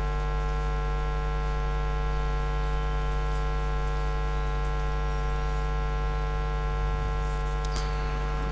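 Steady electrical mains hum: a constant low buzz with a stack of steady overtones.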